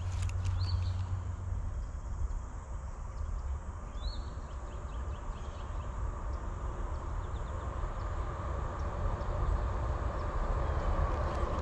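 Wind rumbling on the microphone, with a steady outdoor rush that grows louder near the end and a bird chirping briefly twice.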